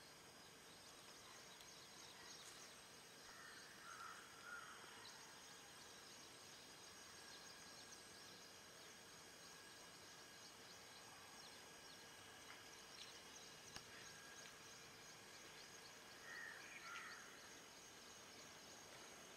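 Near silence: faint outdoor ambience with a steady high hum and two brief, faint bird chirps, about four seconds in and again near the end.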